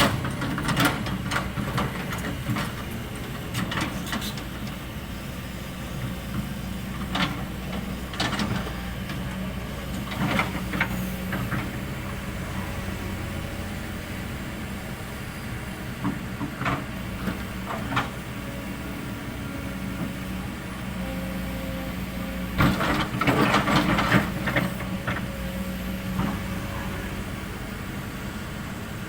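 Kobelco SK200 hydraulic excavator's diesel engine running steadily under work, with scattered knocks and clatter from the machine at work. The clatter is heaviest about two-thirds of the way through.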